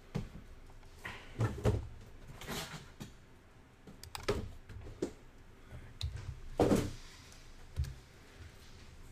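Irregular clicks and dull knocks from computer mouse and keyboard use on a desk, spaced unevenly, with the loudest knock near the end.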